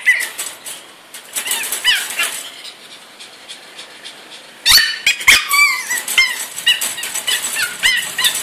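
Three-month-old pug puppy whining and yelping in short, high-pitched cries as it protests being shut in a wire crate, with sharp knocks on the crate as it paws and bites at the bars. A few cries early on, a quieter stretch, then from about halfway two loud knocks and a rapid string of cries.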